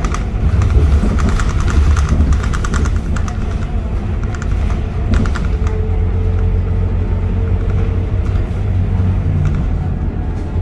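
Scania K230UB city bus running with a steady low engine rumble, with quick rattling in the first three seconds.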